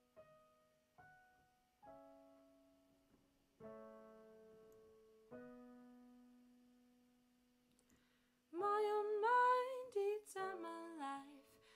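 Solo piano intro played on a digital keyboard: slow chords struck one at a time, each left to ring and fade. About eight and a half seconds in, a woman's voice comes in singing over the keys, louder than the piano.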